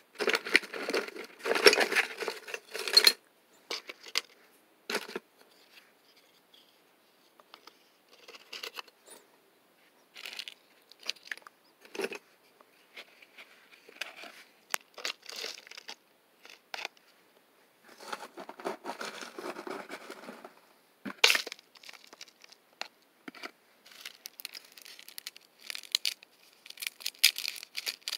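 Hands handling eggshells, seashells and potting soil: bursts of crackly rustling with scattered sharp clicks of shell on shell and on a glass cup.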